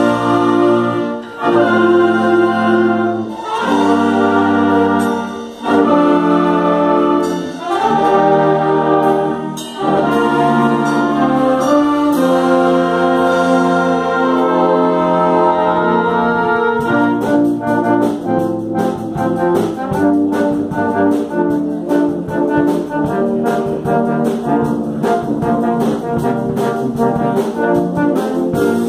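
Concert band of flutes, clarinets, saxophones, trumpets, trombones, horn, euphoniums, tubas and percussion playing. Held chords come in phrases of about two seconds each, then a little past halfway the music turns to a quicker, rhythmic passage.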